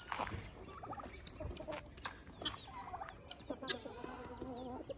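Farmyard poultry, chickens and turkeys, clucking and calling quietly in short scattered calls, with one longer call about three and a half seconds in.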